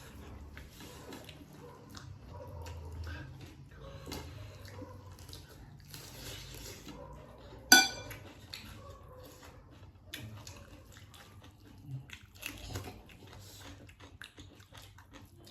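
Plates and eating utensils clinking during a meal: scattered small clicks and scrapes, with one sharp ringing clink about halfway through that is the loudest sound.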